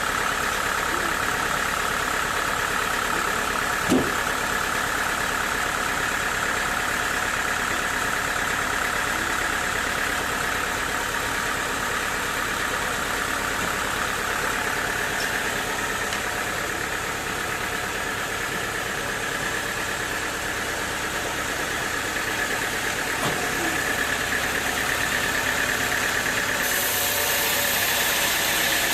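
Sawmill machinery running with a steady mechanical drone, with one sharp knock about four seconds in.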